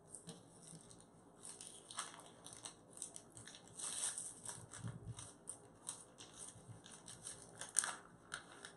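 Packaging of a small tea product being opened by hand: an irregular run of crinkles, crackles and tearing sounds.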